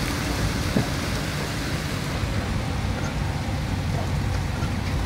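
Steady rain on a moving car's windows and body, heard from inside the cabin, over the low hum of the engine and tyres on the wet road.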